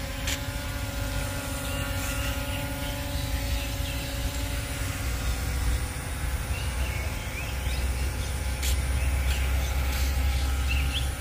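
Small A9 Pro quadcopter drone's propellers humming steadily as it hovers, with a low wind rumble on the microphone that grows louder near the end. Faint bird chirps come through now and then.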